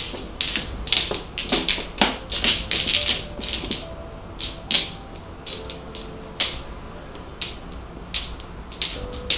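Mahjong tiles clacking against each other and the table as they are set out face down: a quick run of sharp clacks for the first three seconds or so, then single clacks about once a second.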